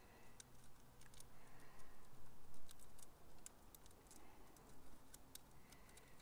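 Light, irregular clicks and taps of a black plastic 13-pin plug body and its wires being handled and pushed together in the hands.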